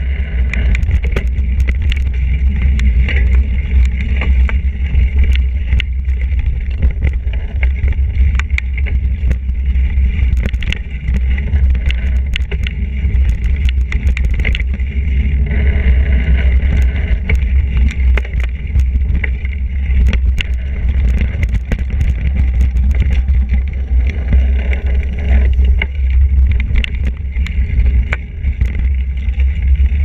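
Mountain bike riding fast down a dirt singletrack, with heavy wind rumble on the handlebar camera's microphone and frequent rattles and clacks as the bike runs over roots and bumps.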